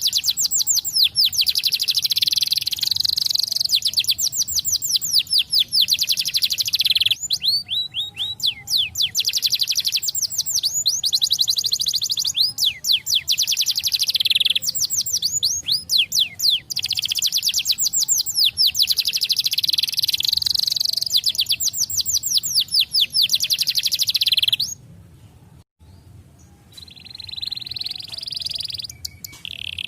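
Canary singing long, fast trills: phrases of rapid falling chirps, repeated many times a second and strung one after another with short breaks. About 25 seconds in the song cuts off suddenly, leaving fainter chirps.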